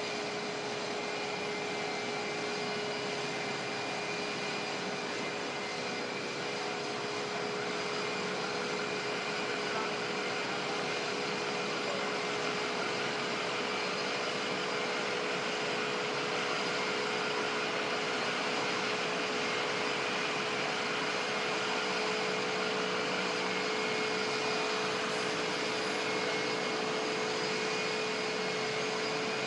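Jet engines of Air Force One, a VC-25A (Boeing 747-200B) with General Electric CF6 turbofans, idling after landing: a steady high whine over a broad rushing hiss.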